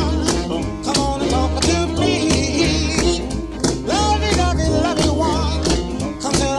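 Background music: a country-style song with a singing voice, guitar and a steady beat.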